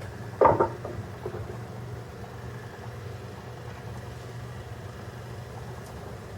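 A steady low hum with one sharp clunk about half a second in and a few faint ticks after it: the cast bench vise being shifted on its bolts to line up its mounting holes.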